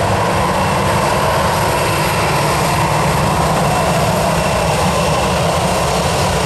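Southwest Boeing 737's jet engines running steadily as it taxis close by: a loud, even rush with a faint high whine held over it.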